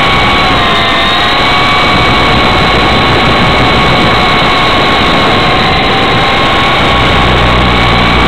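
Blade CX2 coaxial electric RC helicopter in flight, heard from a camera mounted on it: a loud, steady whine of its motors and rotors, the pitch wavering slightly with the throttle.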